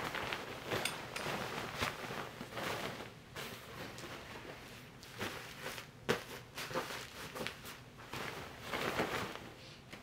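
Bedding rustling and swishing as a bed is made, with the duvet being smoothed and pillows set in place. There is a sharper tap about six seconds in.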